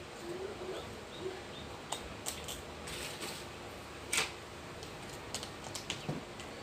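Scattered light clicks and taps of graham crackers being laid in an aluminium foil tray and a metal spoon being handled over it, with the sharpest tap about four seconds in.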